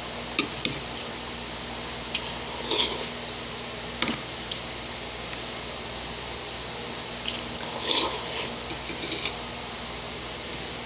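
Eating sounds: a metal spoon scooping rice in water from a ceramic bowl, with sharp clinks against the bowl, and wet chewing and squishing, loudest about three and eight seconds in, over a steady low hum.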